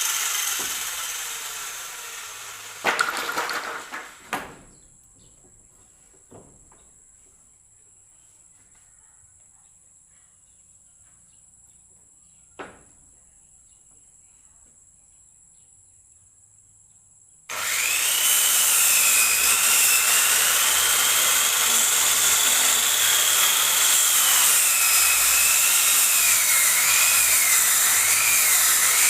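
Circular saw bench ripping a wooden plank: the cut fades out at the start, then a few sharp knocks and a long quiet stretch. About two thirds through, the saw cuts again, starting abruptly at full loudness, a loud steady noise with a whine whose pitch wavers as the blade is loaded by the wood.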